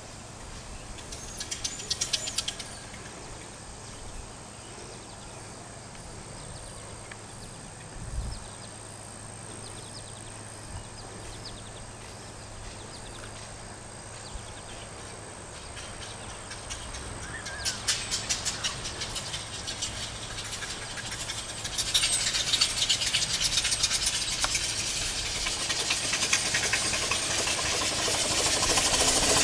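Steam motorcycle (a 1902-style loco cycle) approaching: rapid exhaust chuffing with steam hiss that comes and goes, then grows steadily louder over the last several seconds as the bike draws near.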